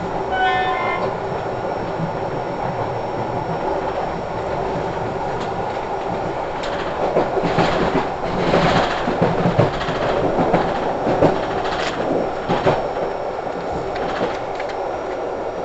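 Train running on the track, heard from inside the coach as a steady rolling rumble. From about halfway through comes a run of sharp clicks and knocks as the wheels pass over rail joints and points. A short high-pitched tone sounds near the start.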